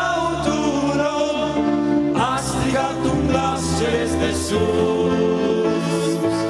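Male vocal group singing a Romanian gospel song in close harmony, with piano accordion and keyboard accompaniment.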